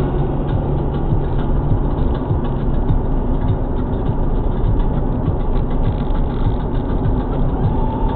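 Steady road noise of a car at highway speed, heard from inside the cabin: tyres hissing on wet pavement over a low engine and wind drone.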